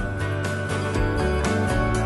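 Background music with held chords and a steady beat of about two strikes a second.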